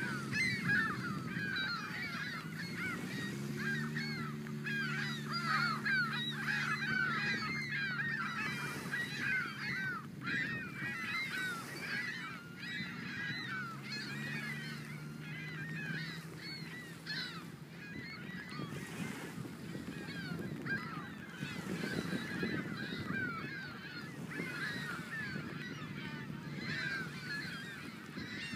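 A large flock of geese honking continuously, many overlapping calls at once. A low steady hum sits underneath for roughly the first half.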